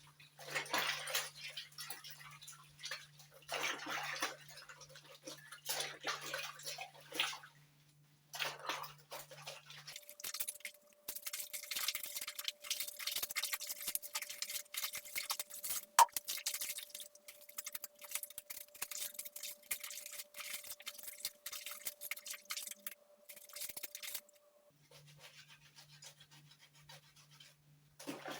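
Scrubbing with a brush: many short, scratchy strokes in quick runs, with one sharp knock about halfway through.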